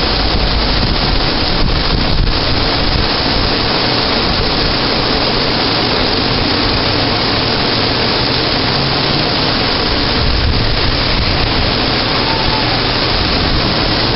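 Thunderstorm rain and gusting wind, with the wind buffeting the microphone: a loud, steady rush of noise.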